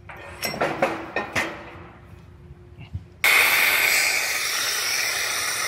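Heavy square steel tube clanking a few times against the steel frame rack. About three seconds in, a pneumatic bellows jack starts a loud steady hiss of compressed air through its hose control.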